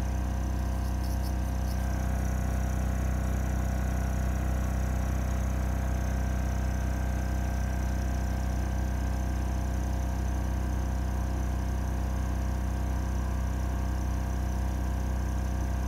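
Engine-driven generator running steadily at a constant speed, a low even hum that powers the floodlight.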